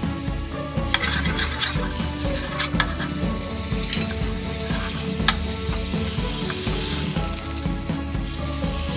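Butter sizzling as it melts in a stainless steel frying pan, with a metal spoon stirring it and clinking against the pan a few times. Background music plays underneath.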